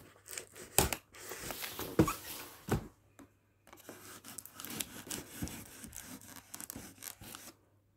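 Cardboard shipping carton being handled and shifted: rubbing and scraping, with three sharp knocks in the first three seconds, then softer scuffling.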